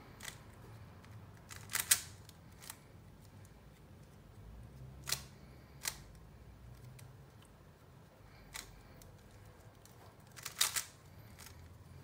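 Plastic clicks of a 3x3 Rubik's cube's layers being turned by hand. Scattered single clicks with pauses between moves, and quick runs of clicks about two seconds in and near the end.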